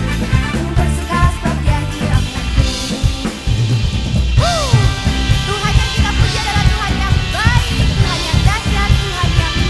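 Live band playing a rock-style worship song, with the drum kit loud and close, plus bass, electric guitars, keys and singing voices.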